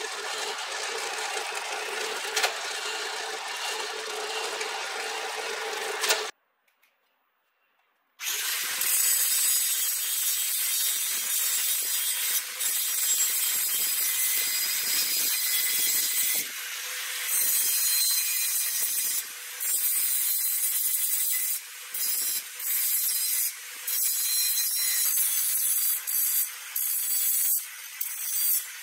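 A drill press running as a step drill bit bores through the thin stainless steel of a mixer jar, for about six seconds. It cuts off, and after a short gap an angle grinder with a thin cutting disc slices into the stainless steel jar. The cutting noise drops away and comes back many times while the motor keeps running.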